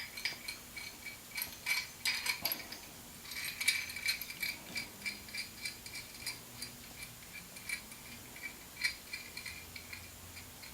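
Light, irregular metallic clicks and clinks with a faint ring as the steel parts of an NP246 transfer case selector fork assembly (bracket, spring and nut) are handled and fitted together, busiest about three to four seconds in.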